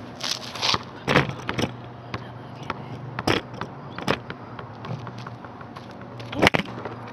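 A few light knocks and scrapes, then one loud sharp smack about six and a half seconds in: a cheap compact camera on a tripod toppling over and hitting the ground, the fall that dents its lens housing and leaves it showing a lens error.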